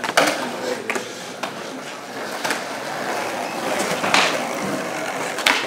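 Skateboard wheels rolling over a smooth floor, with several knocks of the board, the loudest about four seconds in.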